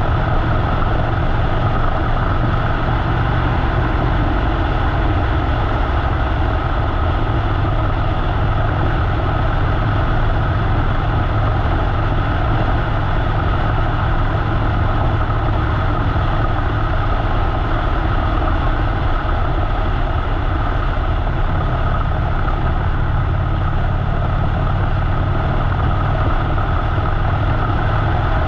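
Harley-Davidson motorcycle's V-twin engine running at a steady pace while riding, with steady road and wind noise over the camera mic.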